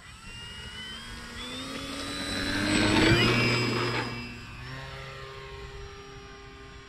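Electric motor and propeller of an HSD-JETS Cessna 182 RC plane throttled up for takeoff. Its whine rises in pitch and grows louder, peaking about three seconds in. The pitch then drops and settles to a steady drone as the plane climbs away.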